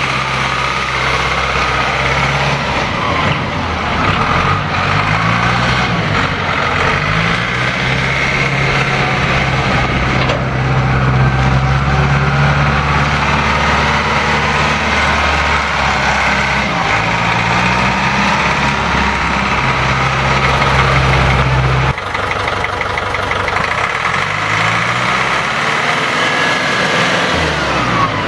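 1985 Caterpillar 910 wheel loader's 65 hp diesel engine running, revving up and down several times as the loader drives and works its bucket.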